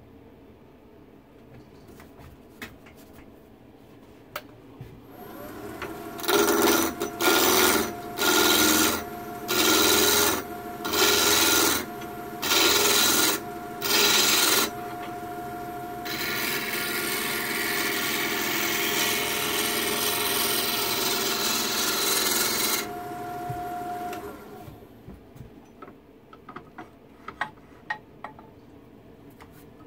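Small wood lathe's motor humming steadily while a gouge cuts the spinning wooden blank: seven short scraping passes of about a second each, then one continuous cut lasting about seven seconds. The lathe then runs on alone briefly and stops, followed by a few light clicks.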